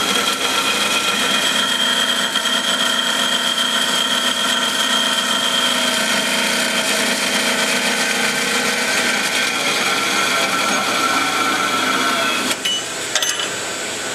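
JMT HBA330 automatic horizontal band saw cutting through square metal tubing, its blade and drive giving a steady whine. About twelve and a half seconds in, the sound drops with a couple of clicks as the cut finishes, and a quieter steady machine sound continues.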